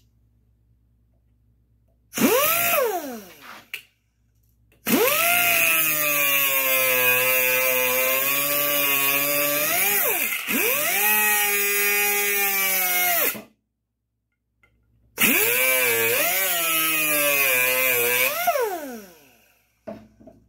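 Angle grinder with a cut-off wheel cutting through 5/16-inch steel bolts held in locking pliers. A brief spin-up and wind-down, then two long cuts in which the motor's whine sags in pitch as the wheel bites into the steel, each winding down at the end.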